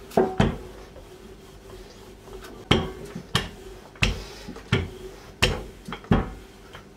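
Long wooden rolling pin working a sheet of dough on a silicone pastry mat, knocking on the worktop with the strokes: two knocks close together near the start, then a run of sharp knocks about one every two-thirds of a second from about three seconds in.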